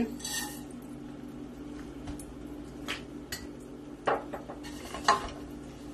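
Wooden spoon knocking against a stainless steel saucepan a few times as dry vermicelli goes into hot oil and butter, the loudest knocks about four and five seconds in, over a steady low hum.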